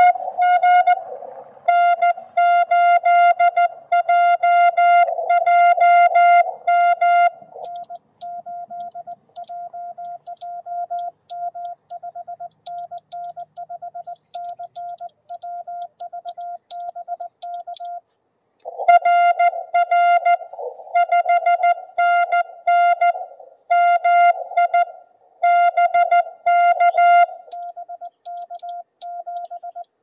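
Morse code (CW) beeps from a ham radio transceiver: one mid-pitched tone keyed on and off in dits and dahs. It alternates between a loud, buzzy stretch at the start and again a little past the middle, and a softer, purer stretch of the same pitch in between and near the end.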